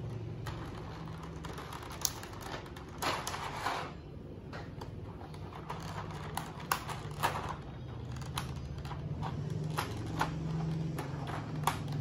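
Clear plastic keycap tray being handled and its tape slit with a knife: scattered light plastic clicks and taps, with a longer scraping rasp about three seconds in. A steady low hum runs underneath.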